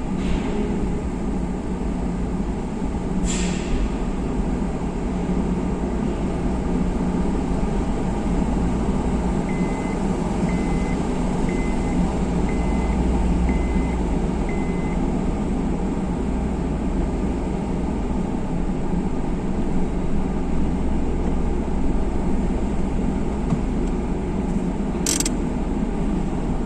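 Steady low rumble of vehicle and ship engines on a car ferry's vehicle deck during boarding. A beeper sounds six times about a second apart around the middle, and there are two short sharp hisses, one near the start and one near the end.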